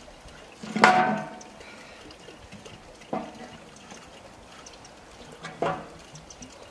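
Split firewood being fed into a steel tent stove: three clunks of wood against the stove, the first and loudest about a second in, with a brief metallic ring. Between them, a fire crackles faintly inside the firebox.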